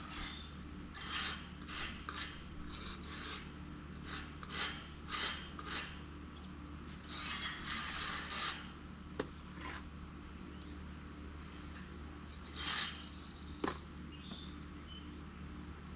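Tuck-point trowel scraping mortar into narrow joints between travertine stones: a run of short scrapes, with two sharp ticks of the tool against the stone.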